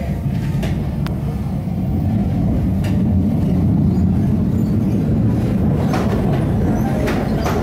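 CNR-built Rio Metro train running on its line, heard from inside the passenger car: a steady low rumble of wheels on track with a few sharp clicks.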